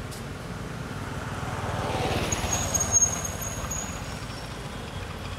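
A motor vehicle passes along the road, its engine rising and then fading, loudest around the middle. A thin, high steady squeal lasts about a second and a half near the middle.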